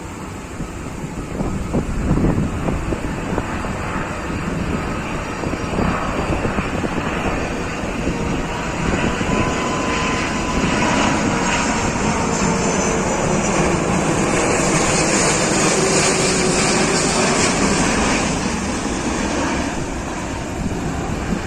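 Airbus A330-243 jet airliner's Rolls-Royce Trent 700 engines running, with a steady rushing noise that swells to its loudest in the middle and eases off near the end, with a faint whine underneath.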